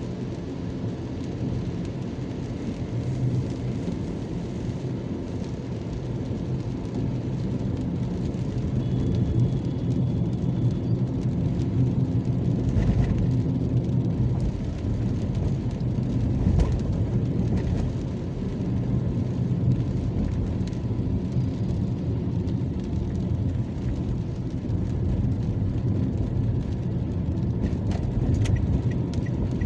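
A car driving on a wet road in rain, heard from inside the cabin: a steady low rumble of engine and tyre noise under the hiss of rain, with a couple of low thumps about halfway through.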